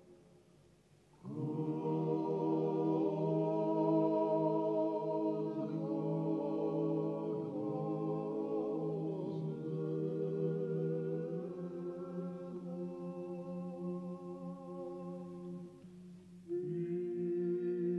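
Georgian polyphonic choir singing: several voice parts hold long, wavering notes over a steady low held note. The voices enter about a second in, fade at the end of a phrase near the end, and come back in with a new chord about half a second later.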